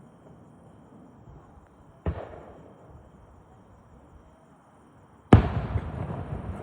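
Two aerial firework shells bursting about three seconds apart, the second much louder, each bang followed by an echoing tail that dies away.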